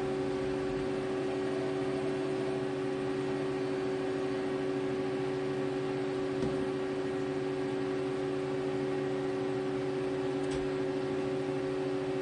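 1998 Mazak QTN-40 CNC lathe running with a steady hum, with a faint tick about halfway through and another near the end.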